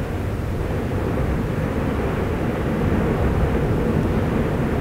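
Steady low rumbling roar of an erupting volcano, a continuous deep noise with no separate bangs.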